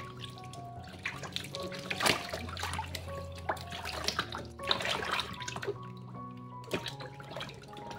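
Soapy water splashing and sloshing in a plastic tub as a Bengal kitten is washed by hand, in irregular bursts, loudest about two seconds in. Soft background music with held notes plays throughout.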